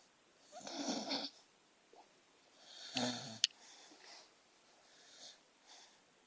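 Beagle-mix dog snoring in her sleep: two louder snores about two seconds apart, the second ending in a sharp click, then a few soft breaths.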